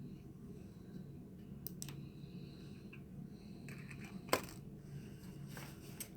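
A few small, sharp clicks and taps of cosmetic packaging being handled and set down, the loudest about four seconds in, over a faint low hum.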